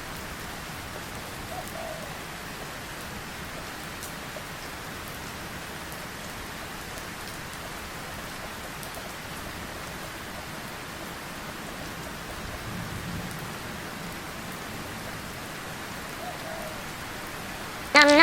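Steady rain falling: an even hiss with faint scattered drop ticks. A much louder pitched, wavering buzz or voice cuts in right at the end.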